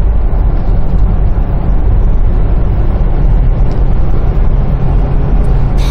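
Steady low rumble of engine and tyre noise inside the cabin of a car driving along a highway.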